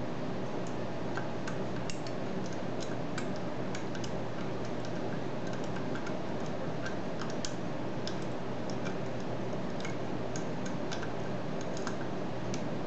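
Lock pick and tension wrench working the spool-pinned five-pin cylinder of an American Lock 5260 padlock: small, irregular metallic clicks as the pins are lifted and set, over a steady background hum.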